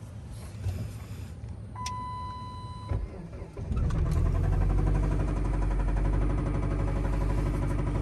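A single electronic warning chime sounds for about a second, then the Dodge Caliber's 2.4-litre four-cylinder engine starts a little past halfway and runs with a rapid, even knock. The knocking is really bad, bad enough that a new engine is recommended.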